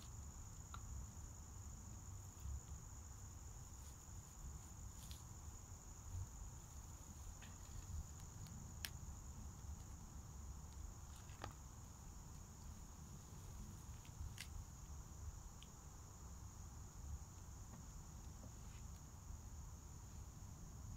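Faint, steady high-pitched chorus of insects, unbroken throughout, over a low rumble, with a few short faint clicks.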